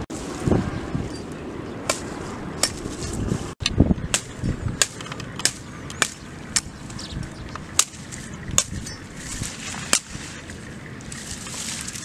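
A knife blade chopping at a freshly cut leafy branch, trimming off its twigs: a string of short sharp cracks, about one a second, over wind noise on the microphone.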